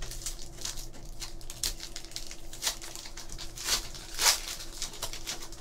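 Foil wrapper of a trading card pack crinkling and tearing as it is opened by hand: a run of crackles, loudest twice at about four seconds in.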